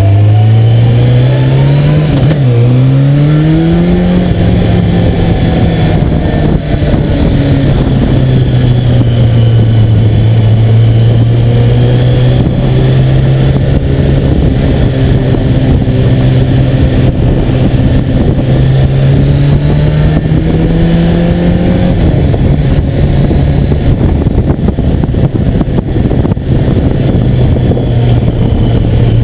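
Motorcycle engine accelerating hard through two quick upshifts in the first few seconds, its pitch climbing and dropping back each time. It then runs at a steady cruising pitch, with a slow rise and a drop back about two-thirds of the way through.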